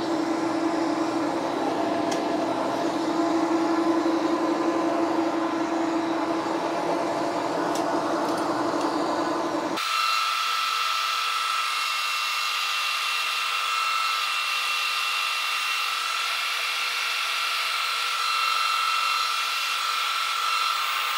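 Monarch engine lathe running a finishing cut along a steel shaft: a steady machine drone with cutting noise. About ten seconds in, the sound changes abruptly to a higher whine and the low hum drops out.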